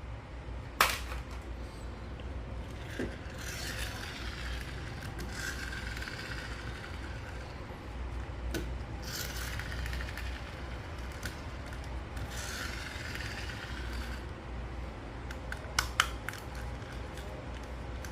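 A toy being handled: long stretches of rubbing and scraping, a sharp click about a second in, and a few quick clicks near the end.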